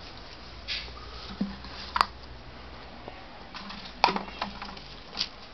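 Dry ornamental grass rustling as a springer spaniel puppy scrabbles and burrows in it: a few short scattered rustles, a sharp click about two seconds in, and a quick cluster of them around four seconds in.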